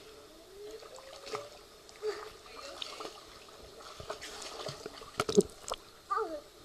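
Swimming pool water lapping and sloshing right at the microphone at the water's surface, with irregular small splashes and a cluster of sharper slaps about five seconds in.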